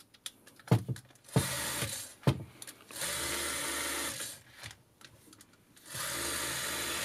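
Krasnogorsk-1 16mm camera's mechanism run with its centrifugal speed governor: a few sharp clicks, then three short runs of steady whirring, each lasting a second or so.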